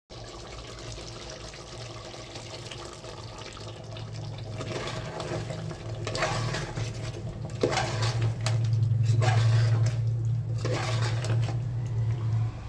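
Thick ground paste poured from a steel bowl onto marinated chicken in an aluminium pot and stirred in with a spoon: wet, sloppy liquid sounds that grow louder, with a few sharp knocks of the spoon against the pot. A steady low hum runs underneath.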